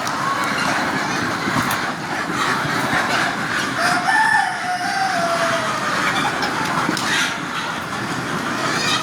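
A rooster crows once, a drawn-out call about four seconds in, over a steady din of chickens in the flock.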